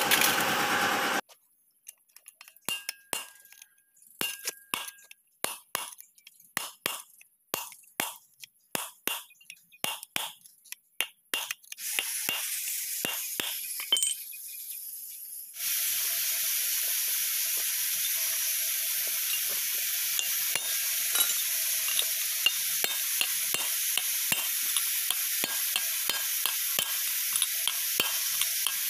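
Metal tools clinking and tapping on a tractor's front-axle pinion housing during hand assembly, a sharp tap every second or so. After that comes a steady hiss with quick light ticks running through it, which near the end are hammer taps on a drift.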